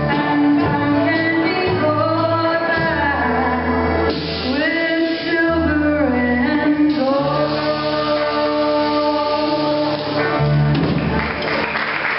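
Live band with acoustic and electric guitars, banjo, accordion, bass and drums playing the close of a song while a woman sings long held notes into a microphone. Audience applause starts to rise near the end as the song finishes.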